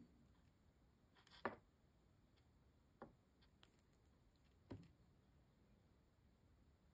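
Near silence with three faint, short clicks of seed beads and a beading needle being handled as the needle is passed through the beadwork.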